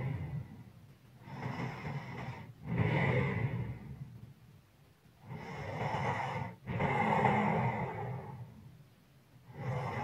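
A sleeping person breathing heavily, with a light snore in each breath. There are slow, rasping breaths in and out, about one full breath every four seconds.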